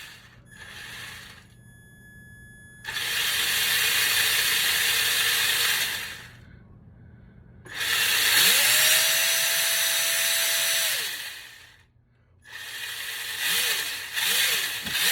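Traxxas Titan 12T 550 brushed motor in an RC truck spinning the drivetrain in three throttle bursts of a few seconds each. Its whine climbs in pitch, holds steady, then falls away as the throttle is released.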